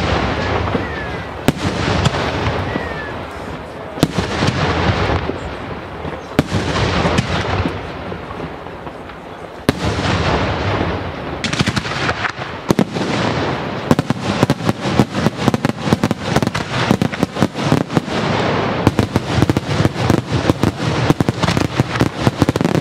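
Daytime aerial firework shells bursting with loud bangs: single reports every second or two, each trailing off, then from about ten seconds in the bursts come faster and faster until they run together into a dense, rapid barrage.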